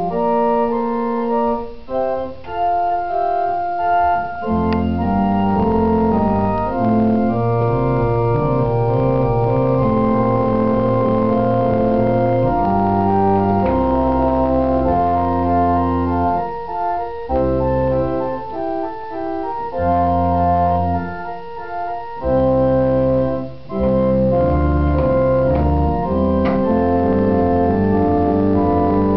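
Organ played: held chords and moving upper lines, with a low pedal bass line that comes in about four and a half seconds in. There are short breaks between phrases.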